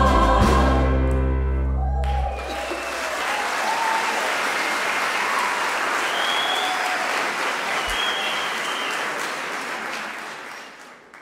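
A choir with instrumental accompaniment holds its final chord, which cuts off about two seconds in. Audience applause follows, with scattered cheers and whistles, and fades out near the end.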